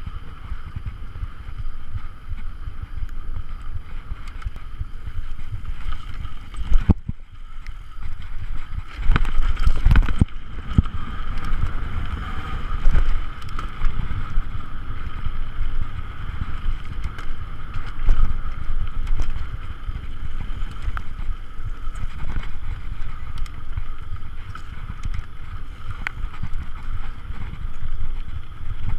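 Mountain bike ridden down a rough dirt trail, heard from a handlebar-mounted camera: wind buffeting the microphone over a steady low rumble from the tyres, with frequent knocks and rattles as the bike hits bumps. It briefly goes quieter about a quarter of the way in, and the hardest knocks come just after that.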